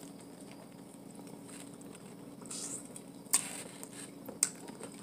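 Quiet eating and food-handling sounds from picking at boiled shellfish from a seafood boil: soft rustling with a few sharp clicks, the loudest a brief crackle about three seconds in.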